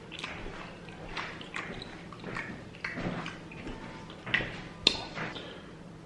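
Eating sounds at a seafood boil: irregular wet smacks and small clicks of chewing and handling shellfish, with one sharper click about five seconds in.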